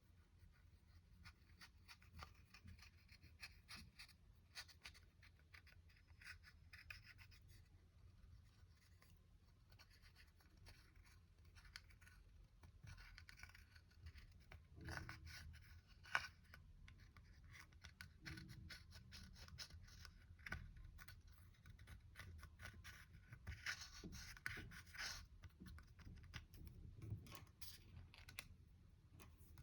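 Faint, irregular scratching and crackling with many small clicks as eye shadow is scraped and mixed into slime, with denser bursts about halfway through and again near the end.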